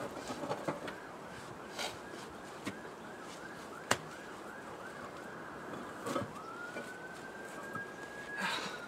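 Faint emergency-vehicle siren that switches from a slow wail to a rapid yelp, then back to a slow rising wail near the end. A few sharp knocks come through as a cracked concrete slab is handled.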